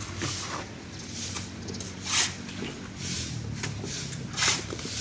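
Trowel work with cement mortar: a trowel scraping mortar out of a bucket and throwing it onto a masonry wall to render it. There are short scraping strokes, with two louder ones about two seconds and four and a half seconds in.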